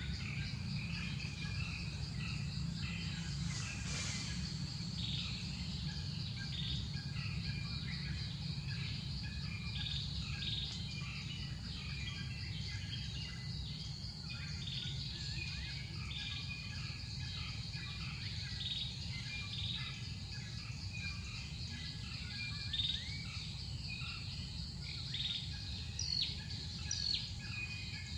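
Forest ambience: many short bird chirps and calls throughout over a steady high insect drone, with a constant low rumble underneath.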